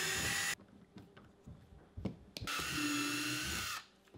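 Cordless drill-driver driving screws into a plastic kayak hull to fasten pad hooks: a run that stops about half a second in, then a second run of about a second and a half near the end, with a few small clicks between.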